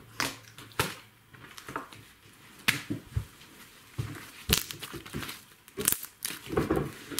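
Slime being squished, stretched and pressed in the hands close to the microphone, giving irregular sharp pops, clicks and crackles with quieter stretches between.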